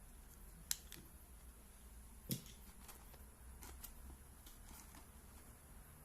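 Quiet room tone with a few light, sharp clicks: two clearer ones about a second and a half apart, then several fainter ticks.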